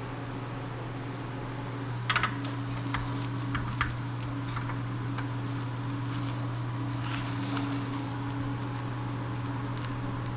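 Steady low hum in the background, with scattered light clicks and taps from hands handling small car parts. The loudest cluster of clicks comes about two seconds in.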